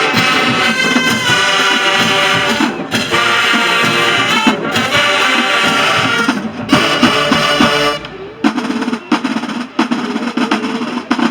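Marching band playing loudly, brass over drums, with short punctuating breaks. From about eight seconds in the full band drops away and the drum section carries on alone with rapid snare rolls and hits.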